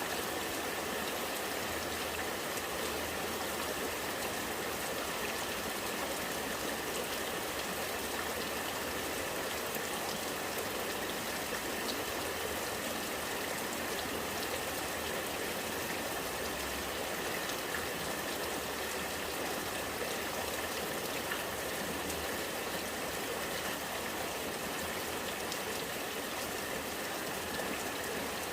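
Rainwater running and gurgling steadily, with rain pattering down.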